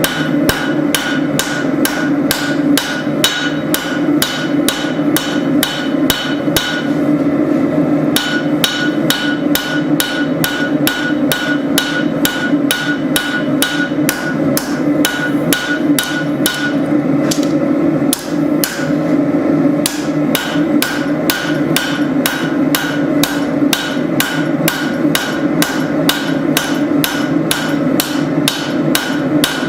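Hand hammer striking hot spring steel on an anvil in a fast, even rhythm of about two to three blows a second, each blow ringing, while a tanto blade is forged. The hammering pauses briefly twice. A steady low roar runs underneath.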